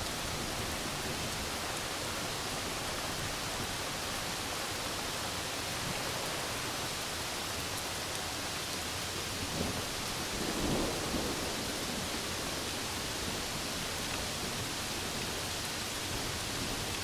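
Steady rain falling, with a low rumble of thunder swelling and fading about ten seconds in.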